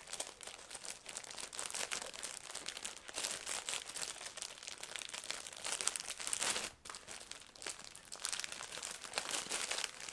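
Individually wrapped packets of reflective bike decals crinkling as they are handled and shuffled, a dense run of fine crackles with a brief pause about two-thirds of the way through.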